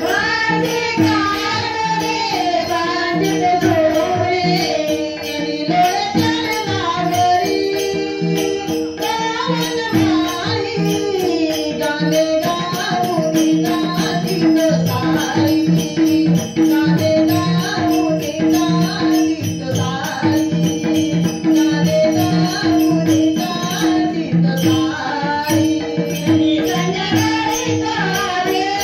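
A bhajan group singing a Marathi gaulan, a devotional song, over a steady held drone, with rhythmic jingling percussion and a drum.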